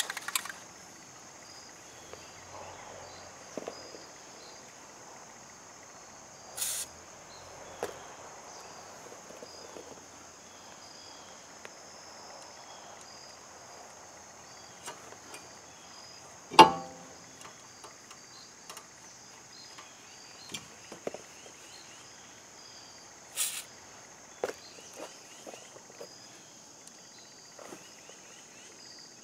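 Steady high-pitched insect chorus throughout, with scattered small handling clicks from work at a car's front wheel hub. Two short hisses, about a quarter and about three-quarters of the way in, are an aerosol can of Fluid Film rust protection being sprayed. The loudest sound is a single sharp knock near the middle.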